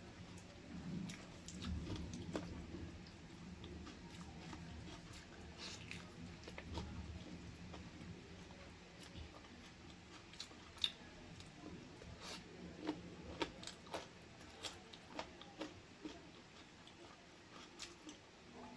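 Close-up eating sounds of chicken feet and gizzard curry with rice being chewed. There is soft, wet chewing at first, then a run of sharp clicks and smacks about halfway through.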